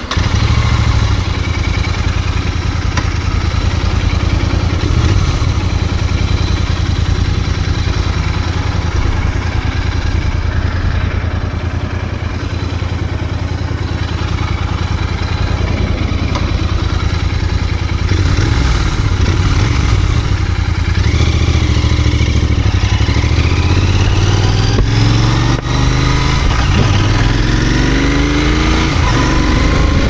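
Royal Enfield Continental GT 650's 648 cc parallel-twin engine idling steadily for the first eighteen seconds or so. It then revs and accelerates, its pitch climbing again and again as it pulls through the gears.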